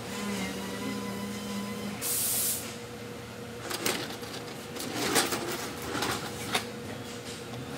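Workshop noises over a steady low hum: a short hiss about two seconds in, then a few sharp clicks and knocks.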